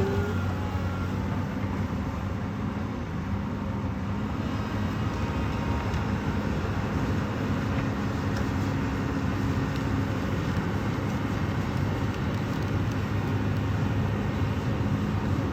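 Komatsu PC200LC Avance crawler excavator working: its diesel engine runs steadily, with its pitch shifting slightly a few times as the load changes.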